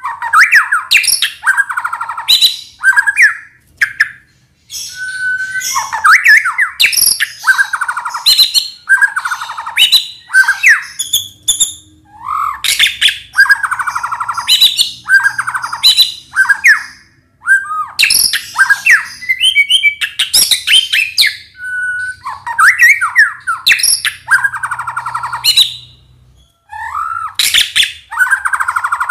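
White-rumped shama (murai batu) singing: a run of quick, varied phrases with short pauses between them, broken by two brief silences, one about four seconds in and one near the end.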